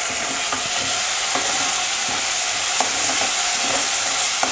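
Ground onion-tomato-cashew paste sizzling steadily in hot butter in a kadai while it is stirred with a spoon, the spoon clicking lightly against the pan a few times.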